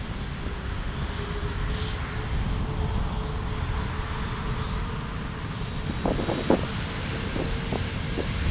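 Airbus A380's Rolls-Royce Trent 972 turbofans running at low thrust as the jet taxis: a steady rumble with a faint steady hum. A few short clicks come about six seconds in.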